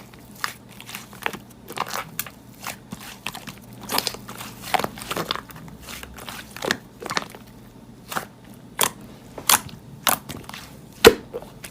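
Slime being squished and pressed, giving irregular crackling, crunching pops, with one sharper pop near the end.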